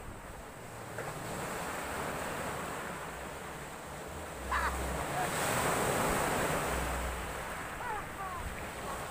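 Sea waves breaking and washing ashore, swelling to a louder surge about halfway through, with wind buffeting the microphone.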